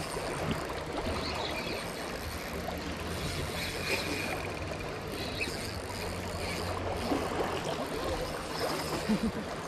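River water rushing steadily, an even wash of flowing-water noise.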